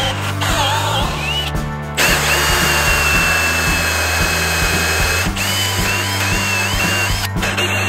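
Cordless drill boring a hole through a wooden wall stud.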